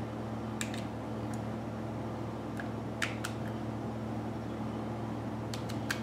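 Steady low hum in the background, with a few small sharp clicks in clusters near the start, in the middle and near the end, as a small plastic button piece is handled and trimmed of a burr with a hand tool.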